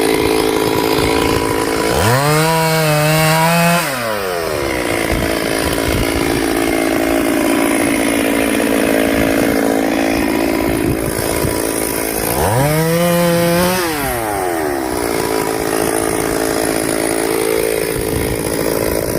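Chainsaw engine running at idle and twice revved to full throttle for about a second and a half, its pitch rising sharply, holding, then falling back, as it cuts firewood.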